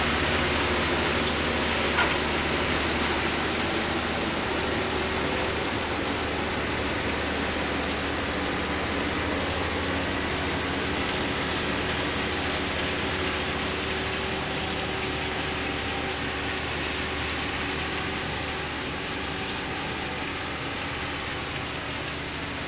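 Engine of a rail-mounted ballast displacer running steadily as the machine travels off along the track, its sound slowly fading. A single sharp click about two seconds in.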